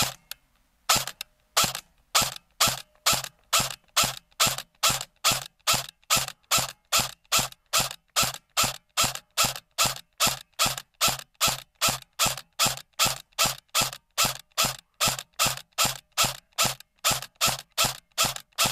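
Barra 400e electric (AEG) BB rifle fired on semi-automatic in a fast, even string of about two and a half shots a second. Each shot is a sharp snap as the battery-driven gearbox cycles and sends a steel BB out.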